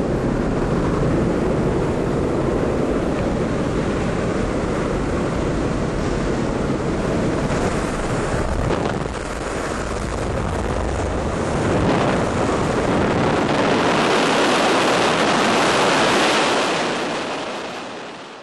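Loud rushing airflow at the open door of a jump plane in flight, buffeting the microphone, with the aircraft's engine noise mixed in. It fades out near the end.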